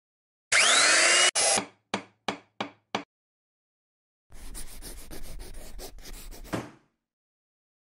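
Woodworking sound effects: a loud, short saw whine with gliding pitch lasting under a second, then four quick knocks, then about two and a half seconds of scratchy rubbing that ends in a soft thump.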